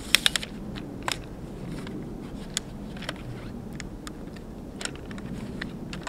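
Sharp plastic-and-metal clicks of a tripod's leg locks and joints being worked: a quick run of four or five clicks just after the start, then single clicks spaced a second or so apart.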